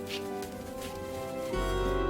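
Background music of sustained, held notes. About one and a half seconds in it moves into a fuller passage with a deep bass note underneath.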